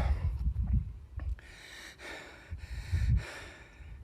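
A man breathing hard in several heavy breaths, out of breath after climbing a steep hill.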